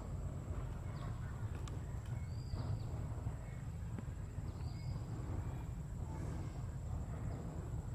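Low, steady rumble of a distant diesel-hauled passenger train (ALCO WDM-3A locomotive) running past. Over it, a bird gives a short arched call about every two and a half seconds, and a thin steady high tone runs underneath.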